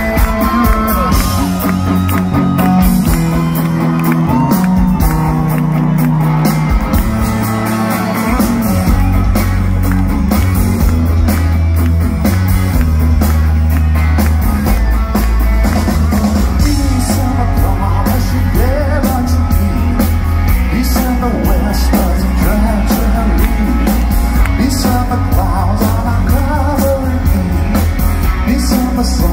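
A live rock band playing loudly through a PA, with electric and acoustic guitars, drums and singing, heard from within the crowd.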